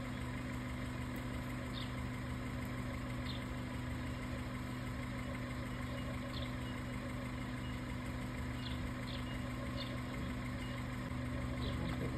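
Car engine idling steadily: a low, even hum. A few short high chirps sound now and then over it.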